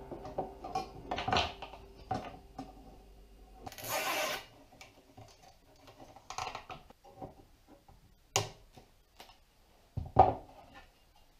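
Clinks, taps and knocks of a wire-basket frame and perforated metal strip being handled and set down on a wooden tabletop. A brief scraping rustle comes about four seconds in, and the sharpest knocks come near the end.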